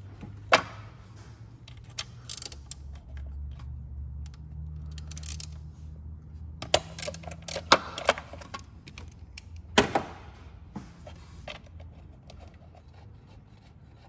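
Ratchet and socket undoing small bolts on an engine: irregular sharp metallic clicks and clinks of the tool, loudest about half a second in, in a cluster around seven to eight seconds and again near ten seconds.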